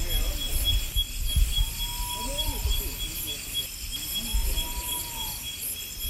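Night cries of the Sri Lankan devil bird (ulama): two drawn-out arching calls about a second long each, roughly two and a half seconds apart, over a steady high ringing of night insects.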